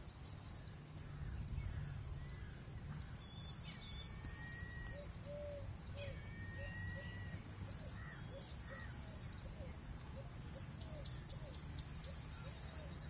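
Wetland ambience: a steady high-pitched insect drone with scattered short bird calls, and a run of evenly repeated low call notes from about five seconds in.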